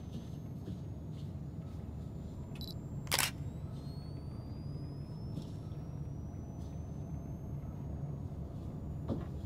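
Low steady rumble of a horror film's tense ambient soundtrack in a dark, still scene, with faint high tones slowly rising. One sharp click about three seconds in.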